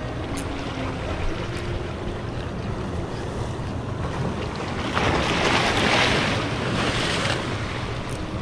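Sea waves washing against shoreline rocks, with wind buffeting the microphone. About five seconds in, a larger wave surges in louder and fades again over about two seconds.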